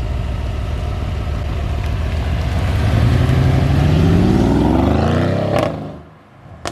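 Mercedes-AMG GLE 63 S twin-turbo V8 exhaust under hard acceleration, its pitch climbing over a couple of seconds, then dying away near the end.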